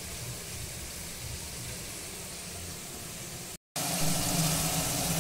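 A faint steady hiss, then after a brief dropout a louder sound of water being poured into a pan of hot tomato-onion masala, splashing and sizzling.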